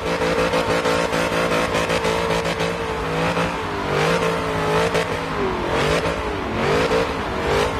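A car's V8 engine running and being revved, its pitch rising and falling several times over the steady note of the engine.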